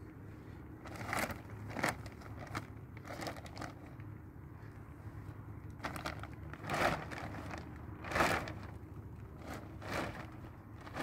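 Clear plastic sheeting over a tent crinkling and rustling in a series of short, irregular swishes as it is handled and pulled.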